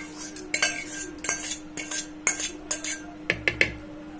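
Curd being spooned into a plastic mixer-grinder jar: a spoon scrapes and clinks against the bowl and jar, two or three times a second, over a faint steady hum.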